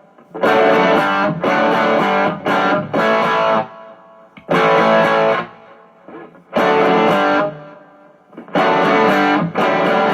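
Outro music: distorted electric guitar strumming chords in short bursts with brief pauses between them.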